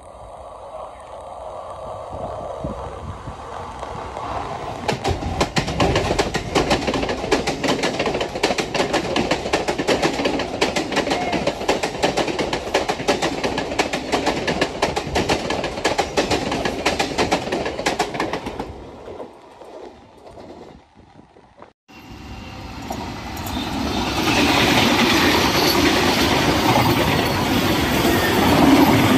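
Mumbai suburban electric multiple-unit local train passing at speed: its wheels clatter in rapid clicks over the rail joints, building, staying loud for about thirteen seconds, then fading. After a sudden cut about three-quarters of the way in, a second electric local, an air-conditioned Western Railway rake, comes past with a steady loud noise of wheels on rail.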